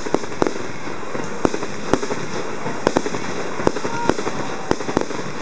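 Fireworks display: about a dozen sharp, irregular pops of bursting shells over a steady hiss.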